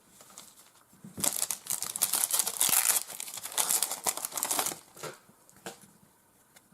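A trading card pack's wrapper being torn open and crinkled in the hands for about three and a half seconds, a dense high-pitched crackle, followed by a couple of light clicks as the cards are handled.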